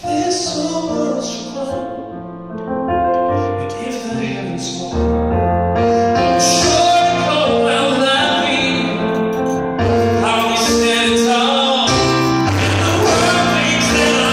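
Male singer performing a slow ballad live, accompanying himself on an electronic keyboard playing piano-style chords. The song gets louder about five seconds in and stays full from there.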